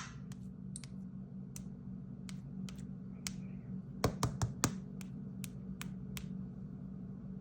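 Light clicks and taps of fingers handling a smartphone, about two a second, with a louder run of four about four seconds in, over a faint steady hum.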